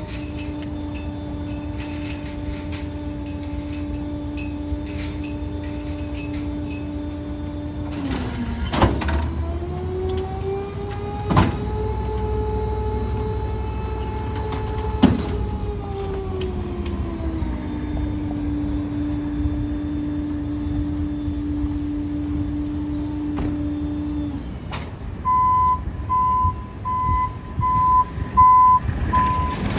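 Gaskin rear-loader garbage truck running its hydraulic packer: a steady machine whine that rises in pitch with three loud clanks as the packer cycles, settles back and stops. Near the end the truck's reversing beeper sounds about once a second.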